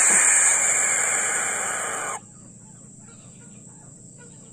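Owl hissing: a loud breathy hiss lasting about two seconds that cuts off abruptly, followed by faint short chirps and clucks.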